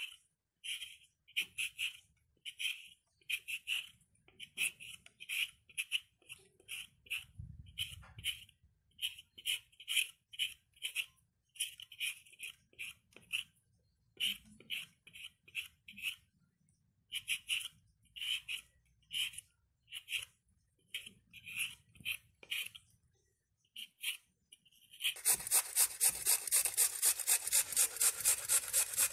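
Raw potato being peeled with a hand vegetable peeler: short scraping strokes, a couple a second, in runs with brief pauses. Near the end it changes to louder, faster rasping as the peeled potato is rubbed up and down a stainless steel box grater, about five strokes a second.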